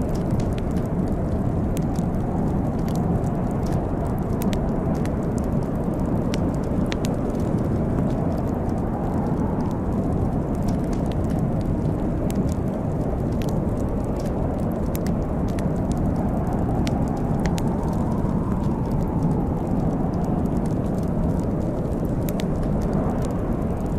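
Fireplace fire crackling, with irregular sharp pops and snaps over a steady low rushing sound that swells a little now and then.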